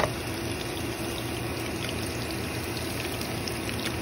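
Ground beef patties frying in hot oil in a pan, a steady sizzle with scattered small crackles. A sharp click right at the start as metal tongs turn a patty.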